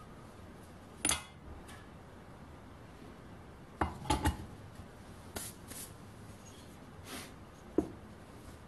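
Scrap aluminium pieces being dropped one by one into a small metal crucible, giving short metallic clinks and clunks: a sharp one about a second in, a quick cluster around four seconds, and a few more after that, with a last sharp knock near the end.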